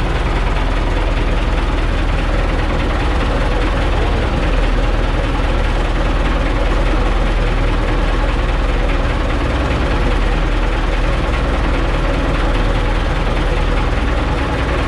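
A fishing boat's engine running steadily, a loud, even drone with a constant low hum.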